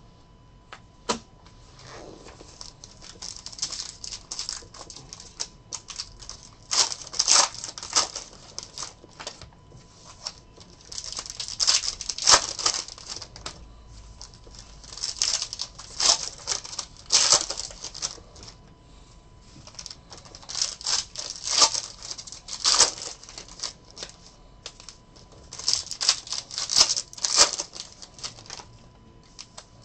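Foil Panini Spectra football card pack wrappers crinkling and tearing as packs are handled and opened, in clusters of sharp crackling every few seconds.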